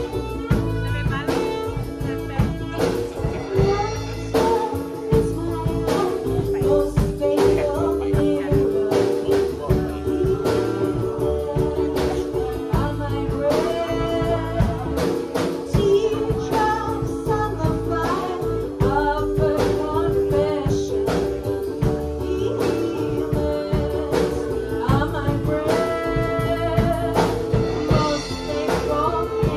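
Live band music: a woman singing with violin and upright double bass over a steady beat.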